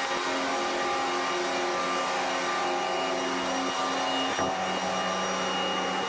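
Steady engine-room machinery noise aboard a tanker: a continuous mechanical drone with several steady tones in it, the pattern of tones shifting slightly about four and a half seconds in.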